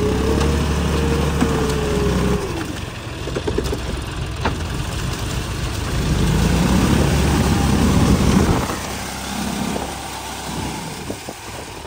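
John Deere tractor's diesel engine labouring in deep mud, its revs rising and falling in the first couple of seconds, then running louder again from about six to nine seconds in before easing off.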